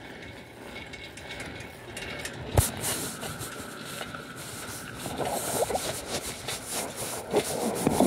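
Handling noise from a phone being carried: rubbing and scattered clicks, with one sharp knock about two and a half seconds in and denser scraping in the second half.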